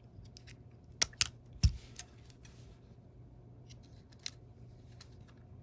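A few small, sharp plastic clicks and a soft knock as a Contour ROAM3 action camera is handled: two clicks about a second in, a knock just after, and fainter ticks near four seconds in.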